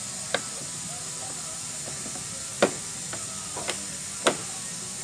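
Plastic clips of a MINI's lower bumper grille snapping into place as the grille is pressed in by hand: four sharp clicks, one right at the start and three more in the second half. A steady hiss lies underneath.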